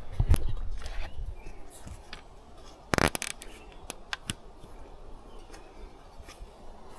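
Hand-work noises on a small outboard's fuel line: light clicks and handling knocks, with one sharp snap about three seconds in.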